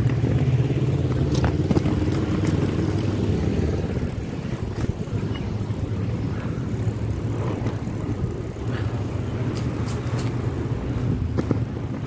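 Oxelo MF500 inline skate wheels rolling over paving tiles and asphalt: a steady low rumble with scattered clicks, louder for the first few seconds and easing off about four seconds in.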